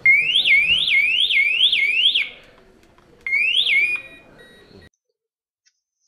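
Vibration-triggered entrance-door alarm siren sounding as a fast rising-and-falling whoop, about three sweeps a second, deliberately muffled. It cuts off after about two seconds as it is switched off. A single short sweep and brief tone sound about a second later.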